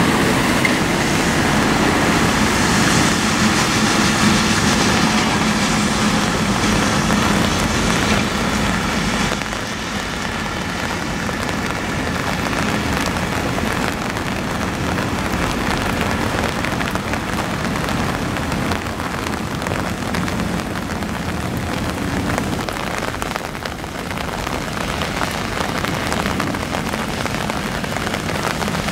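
Steady rain hiss with a low hum under it; the hum fades away about nine seconds in.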